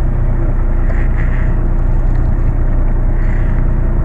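Fishing boat's engine running steadily, a constant low hum with a steady drone above it.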